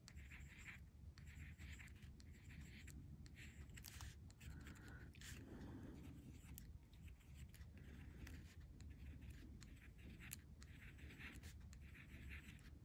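Faint scratching of a fine metal-tipped stylus rubbed over aluminium metal tape, in a run of short strokes with small ticks, as the foil is textured around raised string lines.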